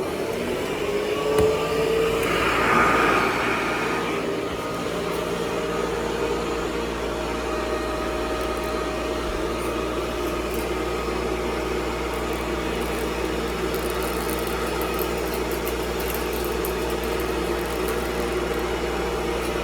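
Hoover Model 28 upright vacuum cleaner switched on: its motor comes up to speed over the first couple of seconds with a rising whine, then runs steadily with an even hum and rush of air.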